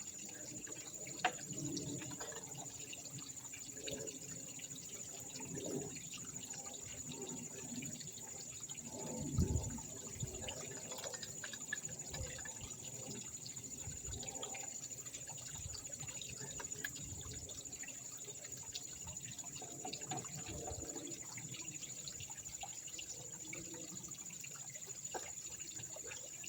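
Steady trickling of pond water from a leaking filter fitting, with scattered clicks and knocks as the fitting is handled and tightened by hand, and one louder thump about nine seconds in.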